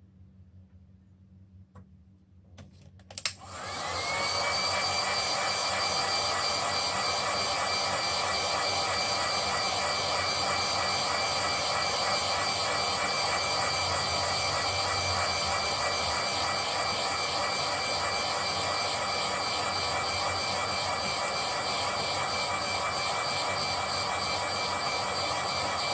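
A small electric blower motor switches on about three seconds in, after a couple of clicks, and runs steadily with a loud rush of air and a high whine.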